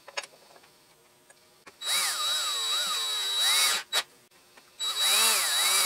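Power drill-driver running cap screws into the power feed's mounting casting on the milling machine table, in two spells of a couple of seconds and about one second, its motor whine rising and falling in pitch with the trigger. A sharp click comes between the two spells, and there are faint small clicks near the start.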